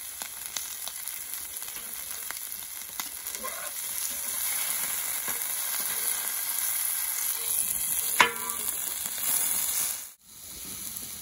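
Potatoes in a cast-iron pan and pork neck steaks sizzling on a hot steel fire-plate grill, with a metal spatula scraping and turning the potatoes. A single sharp metallic clank about eight seconds in, and the sound drops out for a moment near the end.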